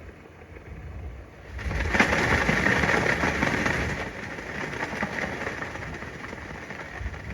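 Recorded soundscape: a low rumble, then from about a second and a half in a loud, dense rustling and crackling noise that slowly eases off.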